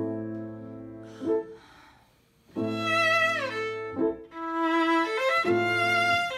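Violin played with the bow, with piano. A chord rings and fades over the first two seconds, then the violin comes in loudly about two and a half seconds in, slides down in pitch and holds long notes.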